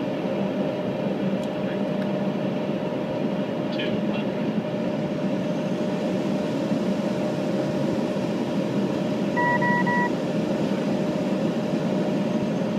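Steady cabin noise inside a Gulfstream business jet's cockpit on final approach: airflow and engine hum with a constant tone. A brief pulsed electronic beep sounds about nine and a half seconds in.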